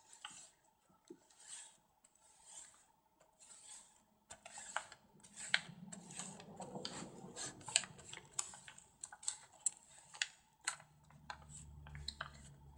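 Crumpled paper towel rubbing wet acrylic glaze off an art journal page, wiping it back to lift the colour: faint swishing strokes with small crinkles and ticks, sparse at first and busier from about four seconds in.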